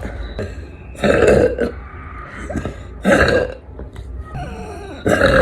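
A woman burping loudly, two short burps about two seconds apart, with a third starting near the end.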